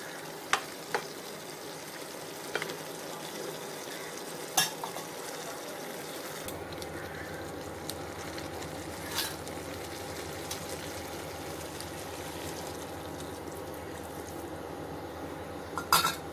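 Soya chunks and potatoes sizzling in a pan of curry masala, with a spoon now and then clicking and scraping against the pan, and a few clinks near the end.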